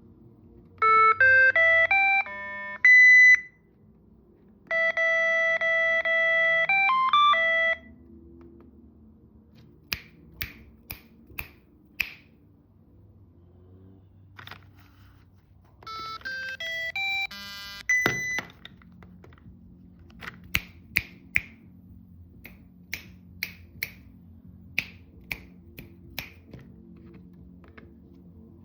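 Cardputer-Adv's small built-in speaker playing electronic test beeps: two quick runs of tones stepping up in pitch, and a longer mostly steady buzzy tone that changes pitch near its end. In between and afterwards come sharp clicks of keys being pressed on its tiny keyboard.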